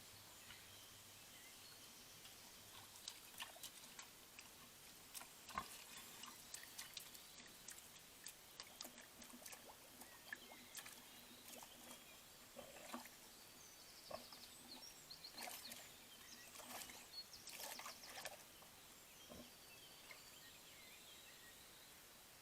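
Faint outdoor ambience over a steady hiss: scattered short clicks and rustles come in a loose cluster through the middle, and a few faint high chirps follow near the end.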